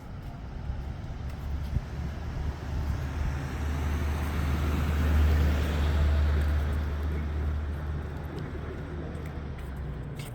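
A road vehicle passing by, its engine and tyre rumble growing louder to a peak about halfway through, then fading away.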